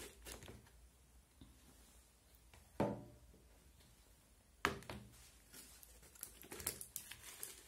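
Hands scooping moist potting soil in a plastic bucket and dropping it into a small plastic cup: faint rustling and pattering of soil, with two short knocks about three and five seconds in.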